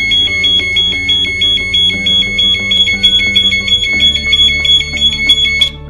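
LaserShield master alarm unit's 110-decibel siren sounding during a panic-alarm test. It is a loud, shrill two-tone warble, flipping rapidly between two high pitches several times a second, and it cuts off suddenly near the end.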